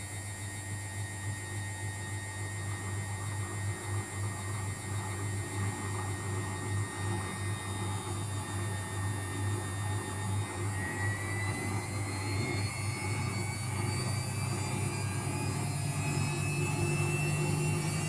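Luxor WM 1042 washing machine on its 800 rpm spin with an unbalanced load. The drum's hum drops off right at the start and wavers unevenly, then speeds back up, with the motor's whine climbing steadily in pitch through the second half.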